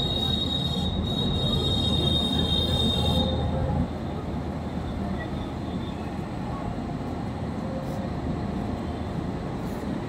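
Electric locomotive pulling a train slowly into the station, a steady low rumble of wheels on rail. A thin, high steady whine runs over it and stops about three seconds in, after which the rumble is a little quieter.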